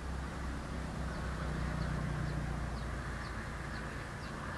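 Steady low background rumble with a small bird repeating short, high, falling chirps about twice a second, starting about a second in.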